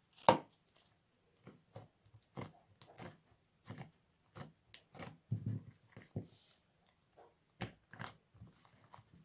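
Fluffy white slime made of white glue, cornstarch and borax glycerin being folded, pressed and pulled apart with the fingers, giving short sticky clicks and pops at about one or two a second, the loudest just after the start.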